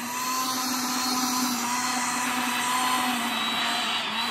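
Small electric garden tiller running steadily, its motor humming as the tines dig through turf and soil.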